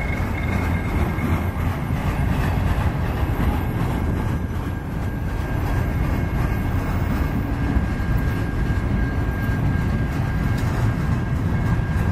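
Autorack freight cars rolling slowly past on the rails: a steady low rumble of wheels on track, with a faint, steady high-pitched squeal running through it.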